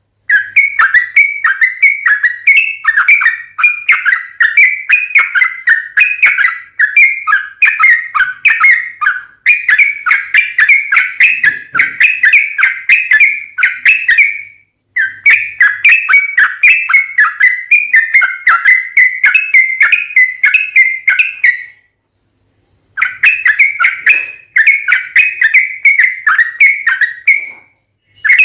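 Yellow-vented bulbul singing a long, rapid run of bubbling, chattering notes, in long phrases broken by two short pauses.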